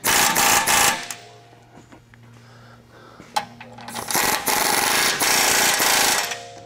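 Pneumatic air ratchet running in two bursts, one short at the start and a longer one from about four seconds in to near the end, tightening the sway bar mounting nuts with a 5/8 socket. A faint low hum sits in the quieter stretch between the bursts.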